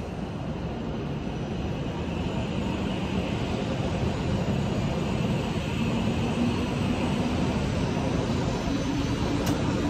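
Hokuriku Shinkansen W7 series bullet train pulling out of the station alongside the platform, gathering speed. Its electric motors give a low whine that steps up in pitch as it accelerates, over a rushing noise that grows steadily louder.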